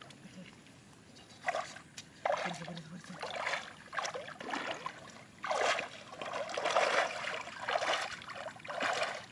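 Water splashing and sloshing in irregular bursts, coming thicker and more continuous through the second half.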